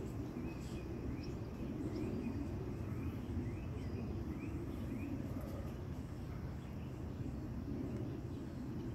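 Outdoor ambience: a steady low rumble, with a bird chirping over it in short rising notes about twice a second that stop around halfway through.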